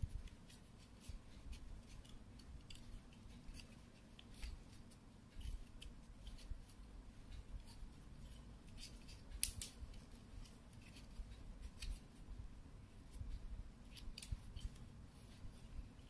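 Faint paper handling: light rustles and small clicks as paper circle flaps on a paper alphabet card are lifted and pressed back down by hand, with a sharper click about nine and a half seconds in and soft low bumps.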